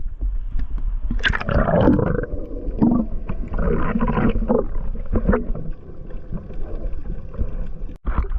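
Water gurgling and sloshing around a camera at or under the sea surface, over a steady low rumble of water on the microphone.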